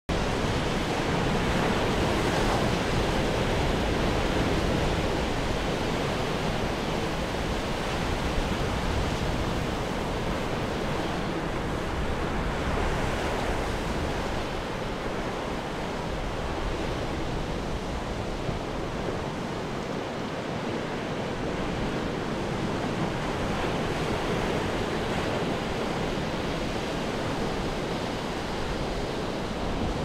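Ocean waves breaking on a rocky shore: a continuous wash of surf that eases a little about halfway through and builds again near the end.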